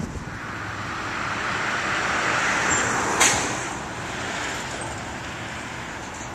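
A road vehicle passing by, its noise swelling and then fading away, with one sharp click about three seconds in.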